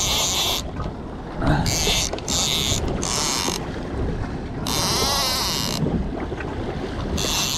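Wind buffeting the microphone aboard a small fishing boat at sea, with short hissing bursts of up to about a second, every second or two.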